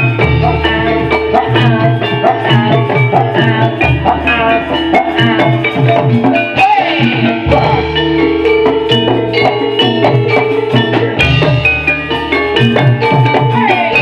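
Javanese gamelan music for a Kuda Lumping dance: drums and struck metal instruments playing a busy rhythmic pattern, with a low note sounding again every three to four seconds.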